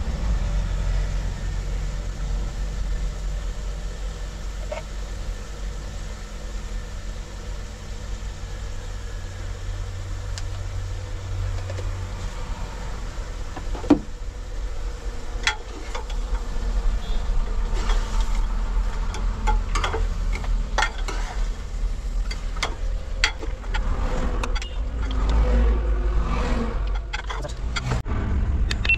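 Low steady rumble, with a sharp knock about halfway and then a run of clinks and knocks of a metal ladle against a steel pressure cooker.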